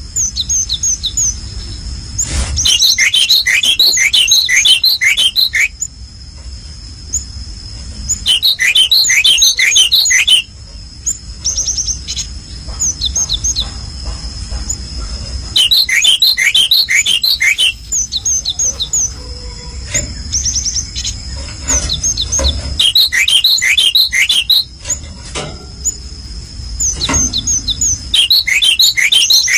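A small songbird singing in repeated bursts of rapid high chirps, each burst lasting two to three seconds, five times. A steady high-pitched tone and a low rumble run underneath.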